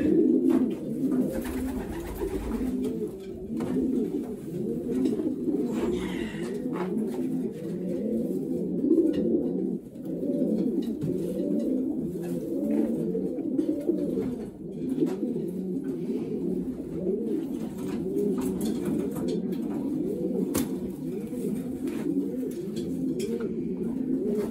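Racing pigeons cooing: many coos overlap in a continuous chorus, with a few light clicks and knocks from handling in the loft.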